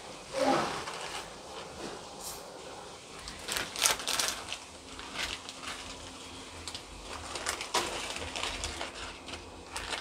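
Metal ladle clicking and scraping against a kadai as dry instant-noodle cakes are pressed into simmering masala water, with a louder cluster of clicks about four seconds in. A brief wavering call sounds about half a second in.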